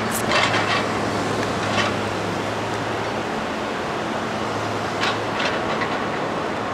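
Engine of a grapple-equipped demolition machine running with a steady low drone, with a few sharp knocks and clatters near the start, just under two seconds in, and again about five seconds in.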